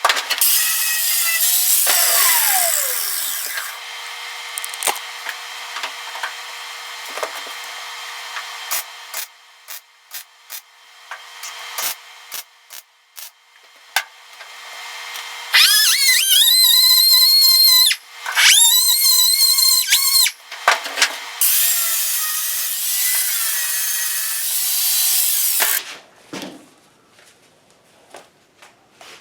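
Handheld power sander run in several bursts on the truck cab's bodywork, whining up to speed and winding down each time, with clicks and taps in the pauses between runs.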